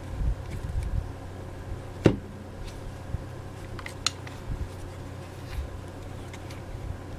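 Handling noise of Makita TD171D and TD170D cordless impact drivers being turned over in the hands, their plastic housings and batteries knocking, with a sharp knock about two seconds in and a smaller click about four seconds in, over a low steady hum.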